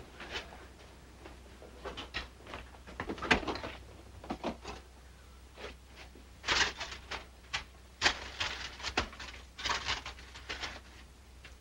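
Someone rummaging through an open refrigerator and handling food containers and packaging: a string of irregular knocks, clinks and rustles, with a louder knock about three seconds in.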